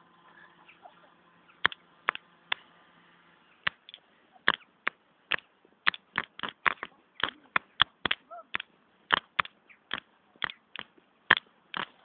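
Sharp, irregular clicks and knocks from a mobile phone being carried and handled by the person filming as they move about. A few come early, then several a second from about four seconds in.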